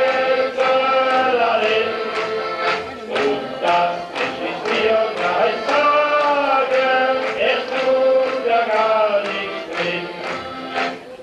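Live band music: a melody played or sung over a steady drum beat of about two strokes a second.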